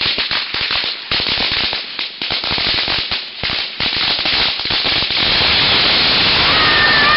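A long string of red-paper firecrackers going off in a rapid, irregular chain of bangs that thickens into a dense, unbroken crackle about five seconds in.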